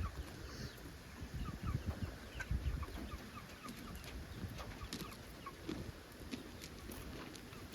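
Chickens clucking in short, repeated notes, with a low rumble underneath.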